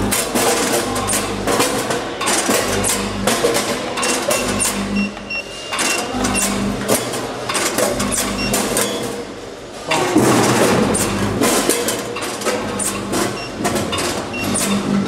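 Ten-head multihead weigher running with raw chicken wings: dense, irregular clattering of wings dropping through the stainless steel hoppers and the hopper gates opening and shutting, over a steady machine hum. The clatter eases off briefly about nine seconds in and comes back loud about a second later.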